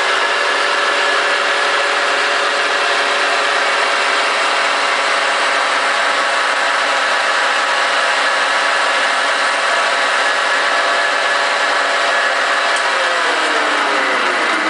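Metal lathe running at steady speed while its cutting tool turns a PVC tube and throws off plastic chips. Near the end the motor winds down with a falling whine as the lathe is switched off.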